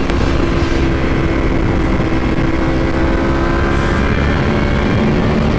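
Ducati Panigale V4 superbike's V4 engine pulling steadily at about 150 km/h in fourth gear, under heavy wind rush. The engine note sags slightly in pitch near the end.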